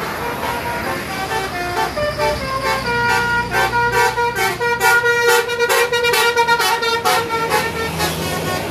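Tour bus basuri (telolet) musical air horn playing a melody of stepped notes, quickening into a run of rapid short notes about three seconds in, with the bus engine running low underneath.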